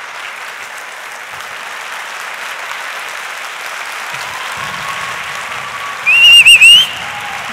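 Audience applauding steadily, with a loud, wavering high whistle for under a second about six seconds in.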